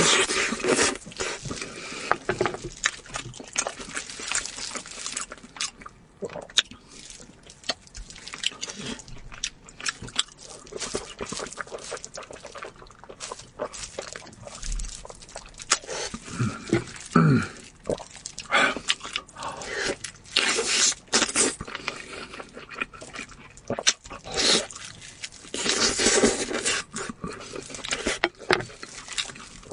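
Close-miked eating sounds: wet chewing, lip-smacking and slurping of braised lamb chops pulled off the bone, with crisp bites of a raw zucchini midway.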